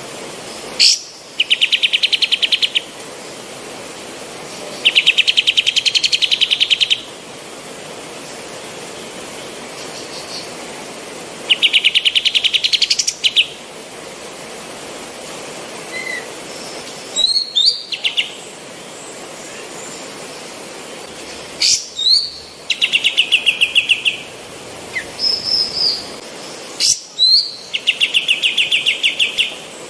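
Female kapas tembak singing in repeated bouts: about six rapid, evenly pulsed trills, each lasting a second and a half to two seconds, with short sharp rising call notes between them.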